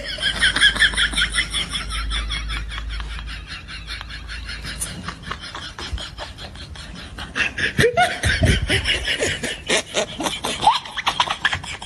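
Laughter in quick repeated bursts, strongest at the start, dying down and then rising again about eight seconds in.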